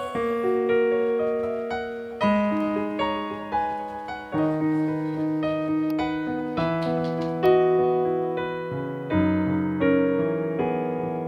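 Piano playing a slow passage of sustained chords, each struck and left to die away, as the accompaniment to a worship song continues without the voice.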